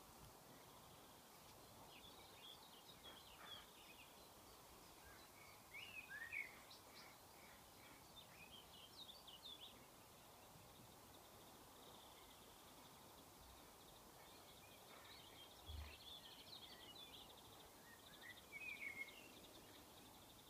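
Faint birds chirping on and off, short high chirps and little glides, over a quiet outdoor hiss.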